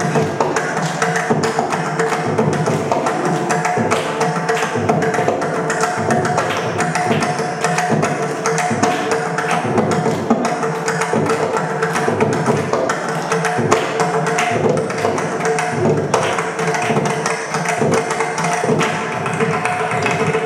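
Several mridangams played together as an ensemble: dense, fast strokes on the tuned double-headed drums, with a steady tone held underneath.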